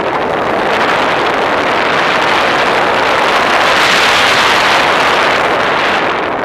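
Rushing airflow on the microphone of a camera riding on a small aircraft in flight, swelling about four seconds in and easing off near the end.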